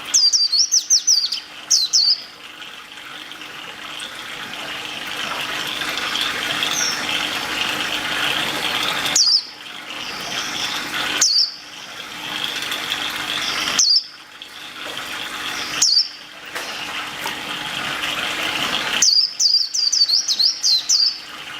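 A bird chirping in short, sharp, down-sweeping notes, in quick clusters near the start and near the end and singly in between, over a steady rushing noise like running water. The rushing cuts out abruptly several times.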